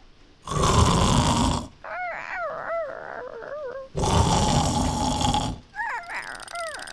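Cartoon snoring from a sleeping puppy character: two long, loud, rasping snores, each followed by a warbling, whistling breath out.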